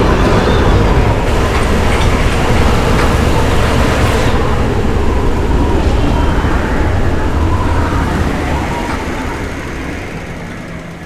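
Layered storm-at-sea sound effects: a dense roar of wind and water over a heavy low rumble, with a steady machine hum in it. The sound dies down over the last three seconds.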